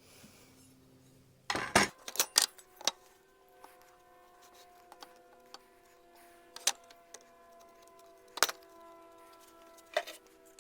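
Nail gun firing into wooden shutter boards: a quick run of sharp shots about a second and a half in, then single shots every second or two. Soft background music with held notes comes in underneath.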